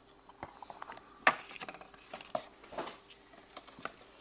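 Plastic HeroClix miniatures and their packaging being handled: a string of small clicks and light rustles, with one sharper click about a second in.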